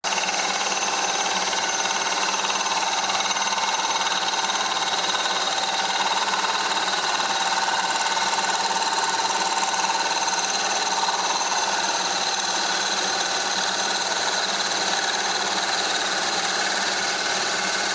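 Milling machine running steadily while taking a facing cut across an aluminium plate. The sound comes in abruptly and holds level throughout.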